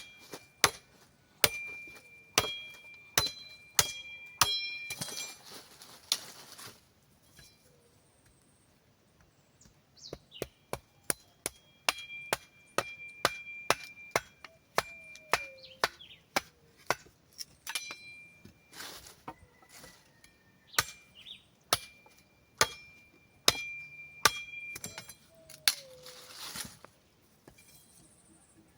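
Sticks being chopped with a metal blade: quick sharp strikes about two a second, many leaving a short high metallic ring, with a pause of a few seconds about seven seconds in.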